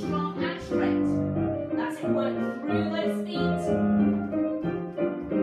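Recorded piano music playing, a moving tune with notes changing about twice a second.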